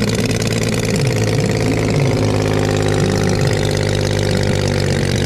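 Engine of a giant-scale RC Curtiss JN-4 Jenny biplane idling steadily with a slightly wavering pitch, just after being started with a handheld electric starter.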